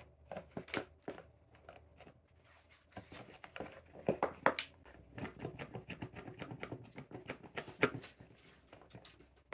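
Quick clicks, taps and light rustling of a plastic dish-soap pump dispenser and a sponge being handled and set in place, played sped up.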